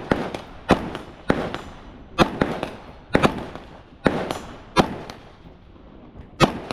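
A string of about eight single gunshots from a firearm, fired at an uneven pace roughly half a second to a second and a half apart, each followed by a short echo.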